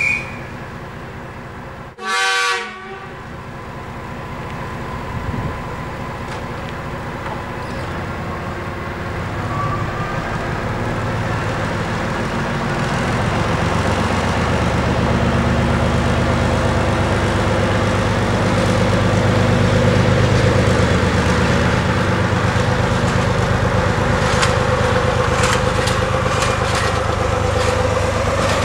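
Caravelle X4500 diesel railcar giving one short horn toot about two seconds in, then its diesel engine running louder and louder as the railcar pulls away and passes close. Near the end, wheels click over the rail joints.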